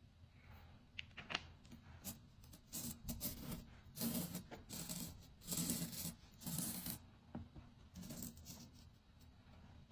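Coloured sand being sprinkled and shaken over a sticky sand-art sheet: a few light clicks, then several short hissing, rustling bursts about halfway through.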